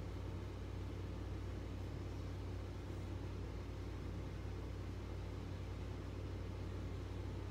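Steady low hum with an even hiss, unchanging throughout: constant background room noise.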